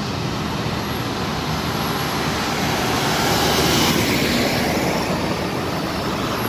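Road traffic: cars driving past on a city street, with a steady rush of engine and tyre noise that swells as a vehicle passes close about three to four seconds in.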